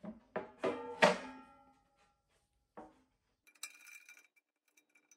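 Metal parts clanking during assembly of an aluminum extrusion frame: three ringing clanks in the first second or so, a single knock a little later, then light scattered metallic clinking.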